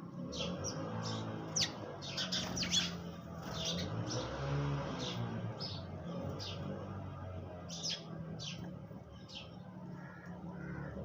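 Sparrows chirping while feeding: many short, sharp chirps, a few every second, with a steady low hum underneath.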